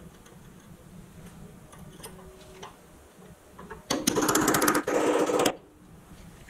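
A cap is driven onto the end of a toy truck's steel wheel axle with a metal tube tool: a loud, rapid metallic rattling burst about a second and a half long, with a short break in the middle. Light clicks of metal parts being handled come before it.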